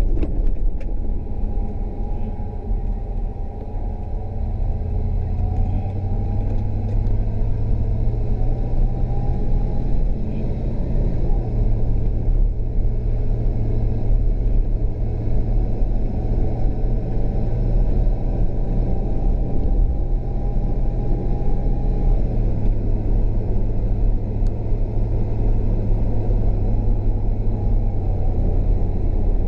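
A car's engine and tyre rumble heard from inside the cabin while driving at low speed: a steady low drone whose pitch shifts slightly as the car speeds up and eases off.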